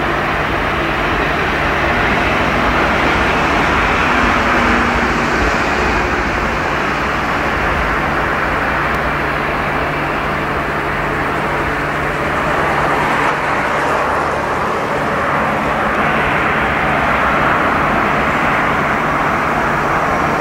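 A heavy freight train rolling on the rails: a steady, continuous rumble with a low steady hum, with a VL8 electric locomotive pushing at the rear.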